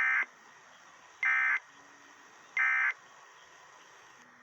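Emergency Alert System end-of-message signal: three identical short bursts of warbling digital data tones, about a second and a quarter apart, marking the end of the winter storm warning broadcast.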